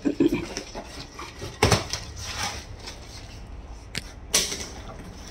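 Cardboard carton being torn open and its boxes handled: rustling and ripping of cardboard with four sharp knocks or clicks, the loudest about a second and a half in and near the end.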